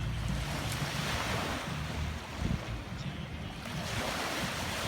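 Ocean surf breaking and washing up, two swells of rushing hiss one after the other, over a low wind rumble on the microphone.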